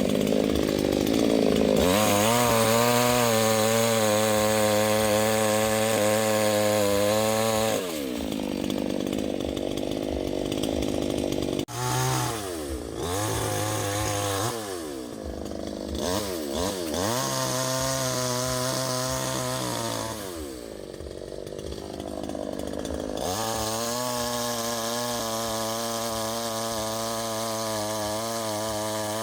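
Two-stroke chainsaw cutting wood, held at high revs in four long stretches, its pitch dropping back between cuts.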